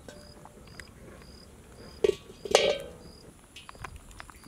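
A black iron kadai clanks down onto its metal stand over a wood fire: two sharp metallic clanks a little after two seconds in, the second louder and ringing briefly. An insect chirps steadily throughout, a short high note about every half-second.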